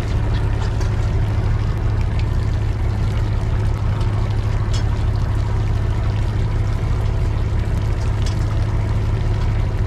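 Fishing boat's engine running steadily with a constant low hum, under a continuous rush of water.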